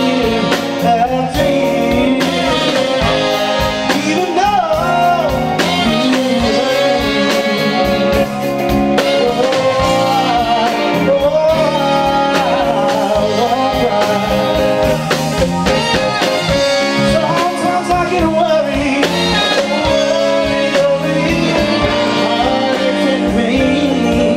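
Live band playing, with a male lead singer, electric guitar and a horn section of trumpets, trombone and tenor saxophone over a steady beat.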